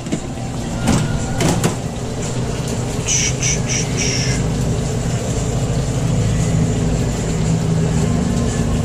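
Steady low mechanical drone of the food truck's running equipment, such as its air conditioning, with a couple of light knocks about a second in and four short hissy bursts around three to four seconds in.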